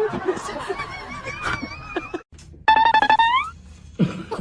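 Music with pitched instrument tones. It cuts out briefly a little after two seconds in, then resumes with a short run of pitched notes rising at the end.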